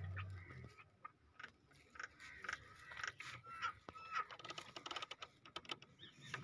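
Irregular soft clicks and smacks of a newborn donkey foal suckling at its mother's udder. A few short bird chirps sound faintly in the middle.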